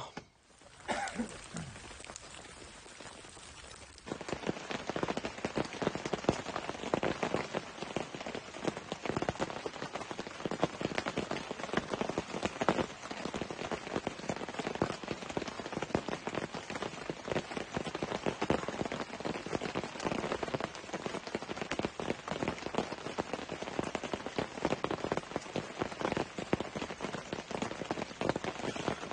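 Rain falling on a tent, heard from inside: a dense, even patter of drops on the fabric, lighter for the first few seconds and heavier from about four seconds in.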